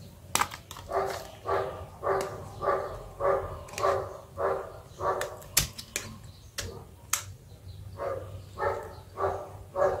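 A dog barking over and over, about two barks a second, in a run of some nine barks, then after a pause of a couple of seconds a few more near the end. A few sharp clicks from the metal pry tool and phone parts being handled.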